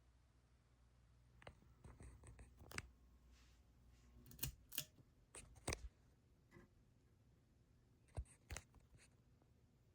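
Faint, scattered clicks and light knocks, loudest around four to six seconds in and again near eight seconds. Under them a low steady hum stops about six seconds in.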